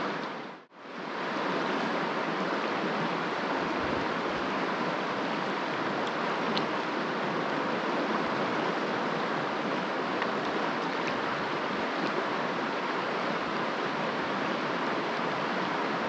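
River water rushing: a steady, even hiss of moving current that drops out for a moment about half a second in and then runs on unchanged.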